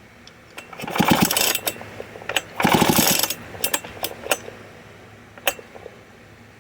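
Old Homelite chainsaw's recoil starter pulled twice, the engine turning over with a fast rattle each pull but not firing, followed by a few light clicks and knocks. The owner suspects the ignition coil is giving no spark.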